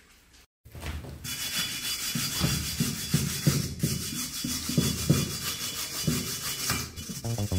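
A metal hand tool scraping rust off the hub of an old cast-iron brake disc, in repeated rough back-and-forth strokes, about two a second. The scraping starts about half a second in.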